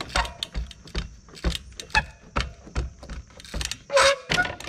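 24-inch Echo trials bike hopping repeatedly on its rear wheel on wooden pallets: a string of sharp knocks with chain and frame rattle, about two or three a second, and a louder clattering landing near the end.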